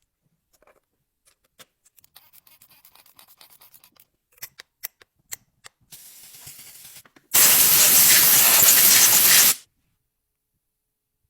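A few small clicks and light rubbing, then a loud steady hiss lasting about two seconds that cuts off sharply.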